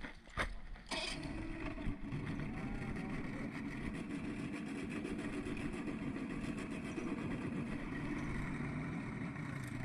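Mariner outboard motor running steadily at low speed, coming in about a second in and then holding an even note.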